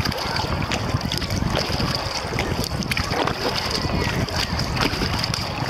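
Kayak paddle strokes splashing and water dripping in irregular small splashes and ticks, over a steady rumble of wind on the microphone.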